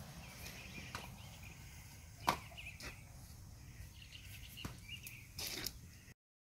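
Quiet outdoor background with a few scattered sharp clicks and knocks, the loudest a little over two seconds in and a short cluster near the end, before the sound cuts off suddenly.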